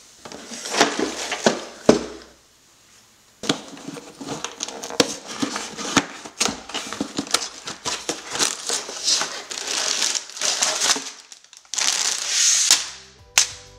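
A LEGO set's cardboard box being opened and its sealed plastic bags of bricks handled: crinkling plastic and rustling cardboard with many small clicks, after a short pause about two seconds in.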